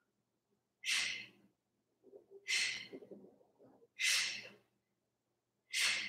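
A woman breathing forcefully under exertion: four sharp breaths about one and a half seconds apart.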